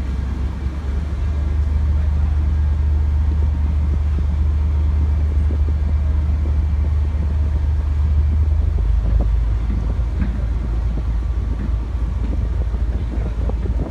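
Ferry diesel engines running, a deep steady hum that steps down to a lower pitch about nine seconds in.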